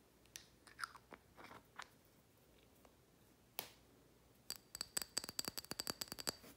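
Black plastic screw cap being worked on a small glass oil bottle: scattered small clicks and taps, one sharper click, then a quick run of rattling clicks for about two seconds near the end as the cap is screwed down.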